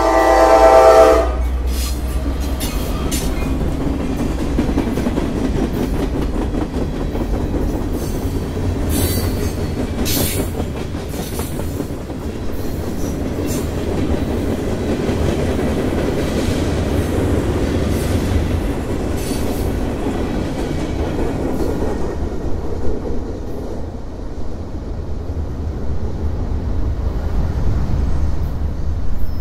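A Norfolk Southern SD40E diesel locomotive's horn sounds a chord that cuts off about a second in. A freight train of covered hopper cars then rolls past with steady wheel-on-rail noise and scattered sharp clicks. About three-quarters through, the clicks and hiss drop away, leaving a low rumble as the last cars go by.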